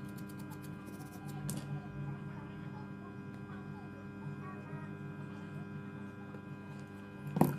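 Toothbrush scrubbing a phone circuit board in a quick series of scratchy strokes during the first second and a half, over a steady electrical hum. Near the end comes one sharp click as the board is handled.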